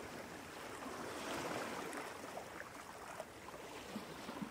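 Faint water ambience: a soft, steady wash like gently lapping waves, with a few small ticks.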